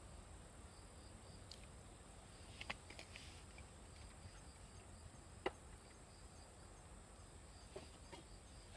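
Quiet outdoor night ambience: insects keep up a faint, steady high trill with evenly repeated chirps. A few sharp clicks stand out, the loudest about halfway.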